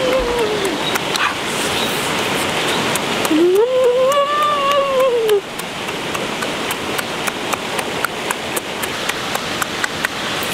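Steady rush of stream water, with a long, drawn-out wail about three and a half seconds in that rises and then falls in pitch. Sharp clicks are scattered through the second half.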